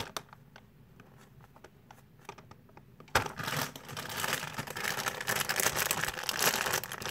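Plastic packaging crinkling as a packaged squishy toy is handled. It starts suddenly about three seconds in, after a quiet stretch with a few faint light clicks.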